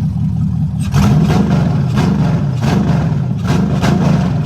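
LS V8 engine in a box Chevy running, then revved in a series of quick throttle blips from about a second in, the pitch rising and falling with each blip.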